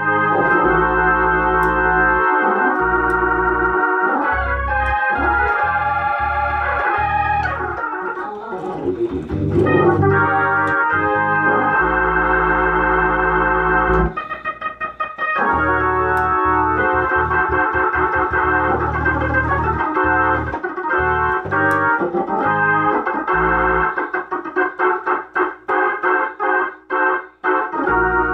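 Two-manual drawbar organ played live: sustained chords stacked over low bass notes that come and go. Near the end it breaks into short, clipped chord stabs.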